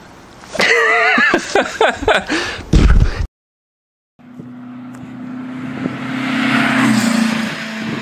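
A few seconds of people's voices calling out, then a cut to about a second of dead silence, then the intro's vehicle engine sound effect: a steady low hum with a rising rush that swells to a peak and eases off under the logo.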